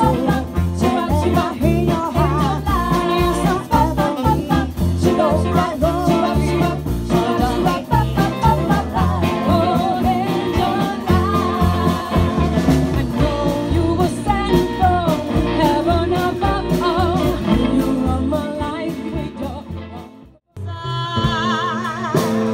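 Live retro pop band playing, with a trio of women singing in close harmony over upright bass and drums. About twenty seconds in the music cuts off abruptly, and a solo woman's voice with wide vibrato starts up with the band.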